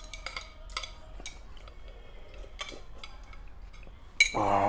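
Scattered light clinks of eating utensils against a ramen bowl during a meal. Near the end there is a sharper click, then a person's voice briefly.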